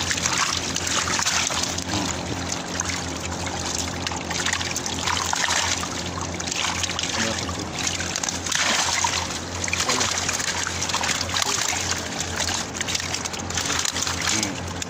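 Freshly netted tilapia thrashing in a wet net: a dense, continuous patter of splashing and slapping water. A steady low hum runs underneath.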